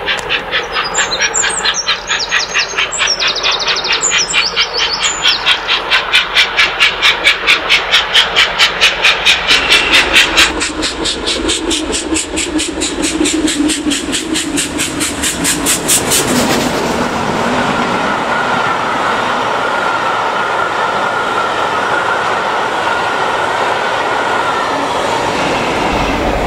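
Mainline steam locomotive passing at speed, its rapid, even exhaust beats growing as it approaches. The beats then give way to the steady rush and clatter of the train of coaches going by.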